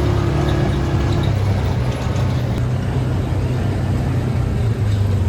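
ATV engine running steadily under way, a low even drone, with a higher steady note that drops out about a second and a half in.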